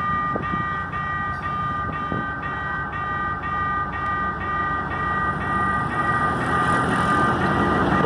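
Level-crossing warning alarm sounding a steady multi-tone note that pulses about twice a second, signalling an approaching train. In the last couple of seconds the rumble of the approaching diesel train swells up beneath it.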